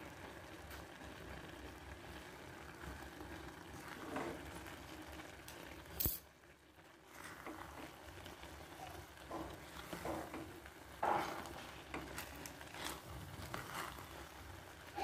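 Wooden spoon stirring cooked rice in a stainless steel pot: faint soft scrapes and light knocks against the pot over a low hiss, with one sharp click about six seconds in.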